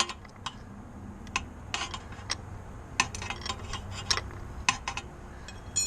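Irregular sharp metallic clicks and clinks of a hand tool working at the motorcycle's oil filter to loosen it.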